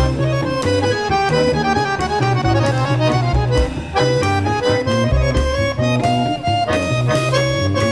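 Victoria button accordion playing a melody over a plucked double bass line in a live instrumental piece.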